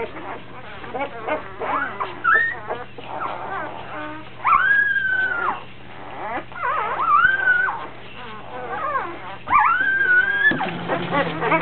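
Newborn puppy crying: a run of short high squeaks and several longer wavering cries that rise, hold and fall. The crying is a hungry pup searching for a teat and not finding one to latch on to.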